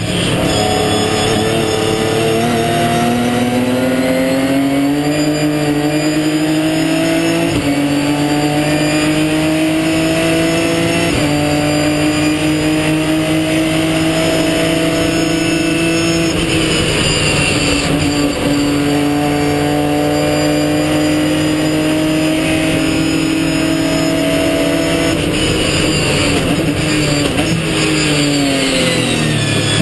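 Ginetta G50 race car's V6 engine heard from inside the car, pulling hard through the gears: the pitch climbs and drops back at upshifts about 7 and 11 seconds in, climbs again, then falls steadily near the end as the car brakes and downshifts.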